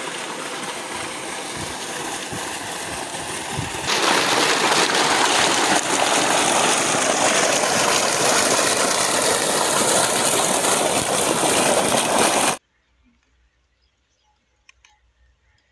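Water gushing and rushing over rocks, a loud, even rushing noise that cuts off suddenly about three seconds before the end. A quieter steady rushing noise comes before it, jumping up to full loudness about four seconds in.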